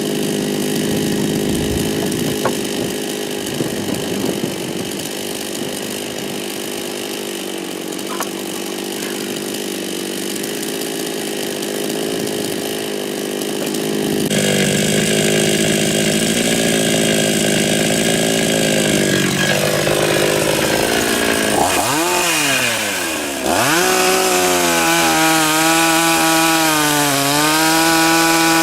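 52cc two-stroke chainsaw with a 20-inch bar cutting willow logs, its engine running steadily. About halfway it gets louder, and late on its pitch drops sharply and climbs back up, then wavers as the chain works through the wood.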